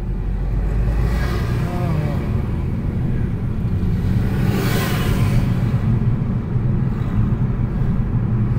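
Car cabin noise: the engine and tyres give a steady low rumble as the car drives forward in traffic. A hissing swell rises and fades about five seconds in.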